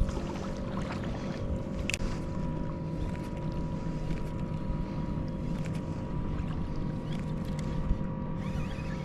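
A boat motor running at a steady pitch, over wind and water noise.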